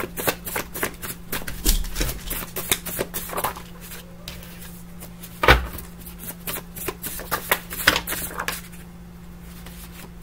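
Tarot cards being shuffled and handled: a quick run of dry card clicks for the first few seconds that thins out later, with one sharper snap about five and a half seconds in.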